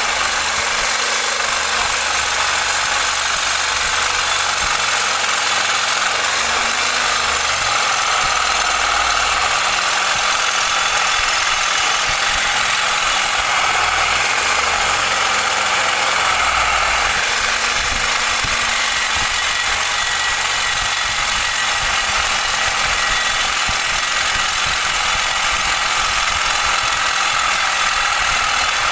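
Reciprocating saw with a carbide-toothed blade running steadily, sawing through a rusted steel leaf-spring U-bolt.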